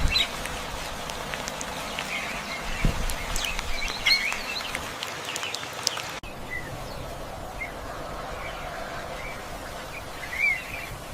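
Several birds chirping and calling in short phrases over a steady outdoor background hiss; the background changes abruptly about six seconds in.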